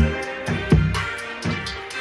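Electronic music with a drum-machine beat playing through a TCL 8111 series soundbar with its bass set to the maximum, bass 5. Two heavy low bass hits come under the beat.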